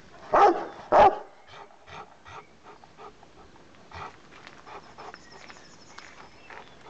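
Rottweiler barking angrily: two deep, loud barks about half a second apart, followed by faint short noises.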